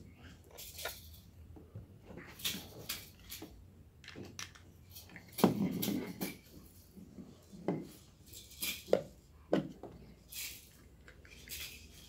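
Handling noise of a network cable and plastic tester parts: irregular light clicks, taps and rustles as RJ45 plugs are pushed into a cable tester and its remote unit, loudest about halfway through.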